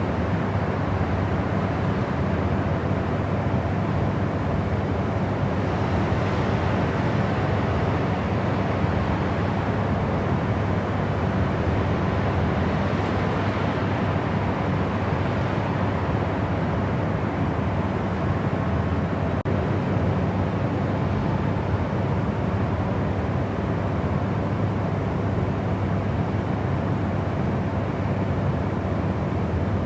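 Steady white-noise sleep sound: a constant, unchanging rush weighted toward a deep rumble, with little high hiss.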